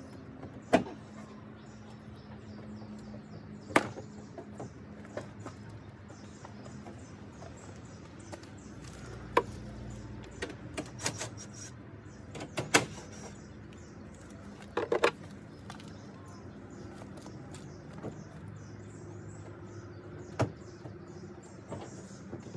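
Sharp plastic clicks and knocks at irregular intervals as a Toyota Tundra's plastic headlight assembly is worked free of its plastic body mounts and handled.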